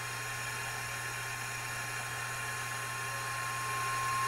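Signal-tracer probe's speaker playing a steady 1 kHz test tone picked up by holding it near a transistor, over hiss and a low hum. The tone grows louder near the end as the probe is brought closer. It shows the signal is reaching that transistor stage.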